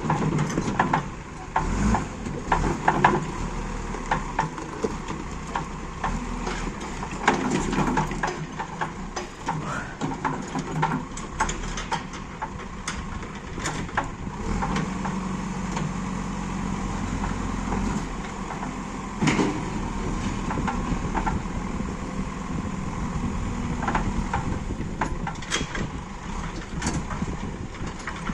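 Diesel engine of a working backhoe loader running steadily, with many sharp knocks and clanks scattered through, loudest in the first few seconds and once more at about nineteen seconds.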